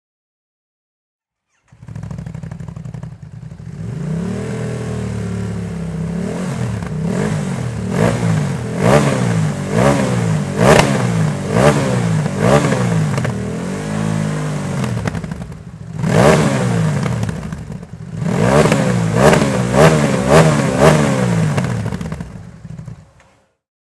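Ducati DesertX's L-twin engine running through an SC-Project Rally Raid titanium muffler with a DeCat link pipe, with the catalyst removed (racing version). It runs steadily, then is blipped again and again to high revs, each rev rising and falling back. There are two runs of blips with a brief drop between them, and the sound cuts off near the end.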